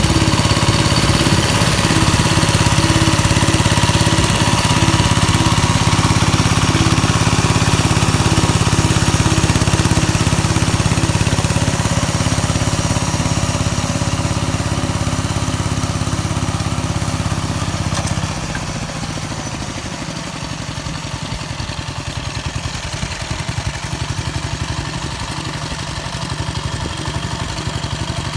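Engine of a homemade mini-tractor converted from a walk-behind tractor, running steadily while rotary tilling. About 18 seconds in, the note drops and turns lower and more uneven.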